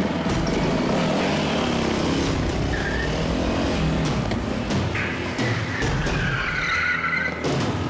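Car engine revving up and down, with tyre squeal from about five seconds in.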